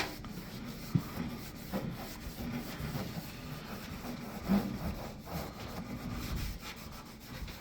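Microfiber cloth loaded with Bar Keepers Friend cleanser paste being rubbed over stainless steel, an uneven scrubbing in repeated strokes.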